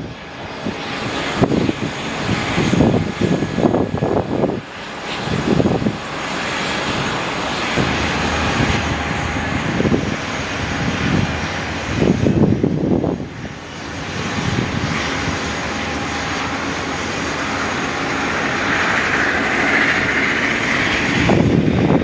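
Airliner engines running at an airport, a steady rushing roar with a higher whine that swells near the end, broken by uneven low gusts of wind on the microphone.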